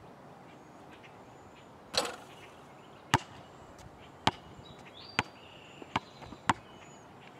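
A basketball shot hits the hoop about two seconds in. The ball then bounces on an asphalt driveway five times, with sharp knocks that come closer together as it settles.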